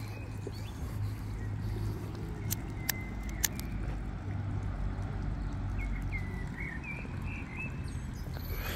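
Outdoor ambience of an urban park: a steady low rumble of road traffic, with a few short bird chirps past the middle and a couple of sharp clicks a little before.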